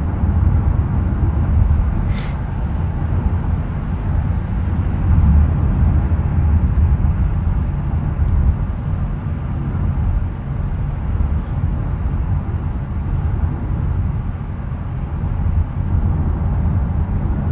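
Steady low rumble of road and engine noise inside a moving car's cabin, with a brief faint hiss about two seconds in.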